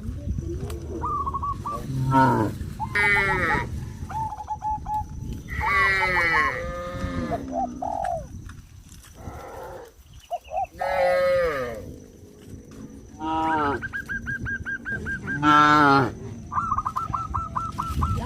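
Cattle mooing again and again, with several calls at different pitches, some deep and some higher. Near the end come runs of short, rapidly repeated calls, several a second.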